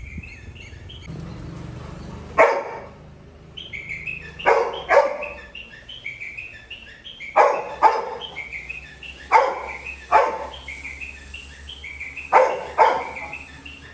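Labrador retriever puppy barking at a closed gate after his departing owner, about nine loud barks, mostly in pairs, a second or two apart. Birds chirp throughout in the background.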